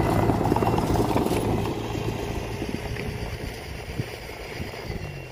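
Komatsu D20A crawler bulldozer's diesel engine running close by, then growing steadily fainter from about two seconds in.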